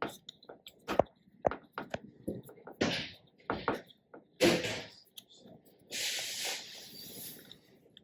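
Small metal clicks and scrapes as an Allen key turns a small bolt out of an espresso grinder's burr carrier and the parts are handled, followed by a longer hissing, rustling noise about six seconds in.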